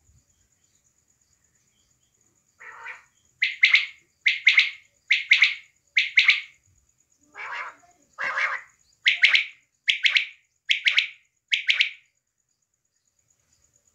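Female quail calling: a series of about eleven calls, roughly one a second, each a quick doubled high note, with two or three lower, rougher notes among them.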